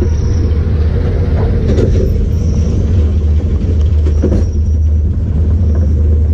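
Mine train roller coaster running along its steel track, heard from on board: a loud, steady rumble of the wheels with a few short clatters.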